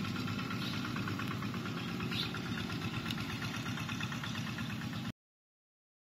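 Engine of a walk-behind rice-field tractor running steadily with a fast, even chugging, cutting off abruptly about five seconds in.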